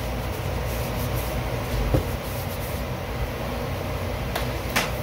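A steady low mechanical hum, with a soft knock about two seconds in and two sharp clicks near the end.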